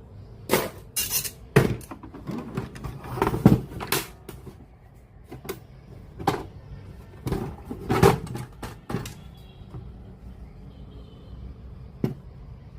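Irregular clicks and knocks of a plastic radio cassette player and its small parts being handled and worked on, bunched in quick runs with pauses between.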